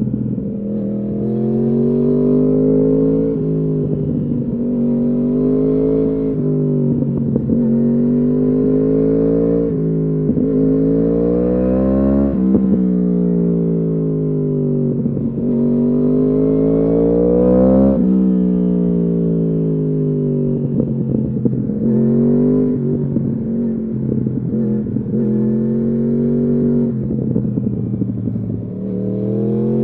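2015 Yamaha R1's crossplane inline-four through an Akrapovič exhaust, riding under load: the revs climb and drop sharply several times as it shifts gears, with a couple of longer swells where the revs rise and then fall away.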